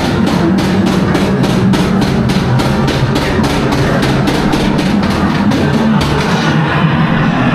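Loud music with a fast, steady drum beat that drops away about six and a half seconds in.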